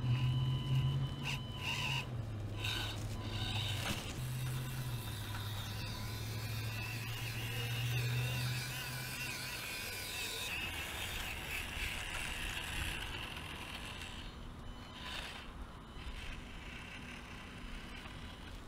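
Axial SCX24 micro crawler's small electric motor and gears whining, with a high whine that wavers in pitch over a steady low hum; the hum stops about halfway in.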